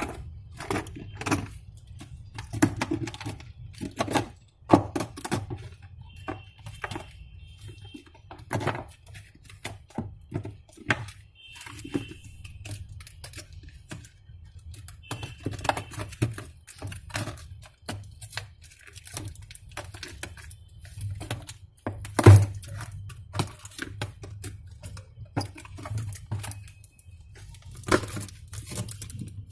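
Irregular clicks, knocks and light rattles of plastic and metal refrigerator parts being handled and worked loose at the freezer's evaporator cover and foil-wrapped defrost heater, with one sharper knock about 22 seconds in. A steady low hum runs underneath.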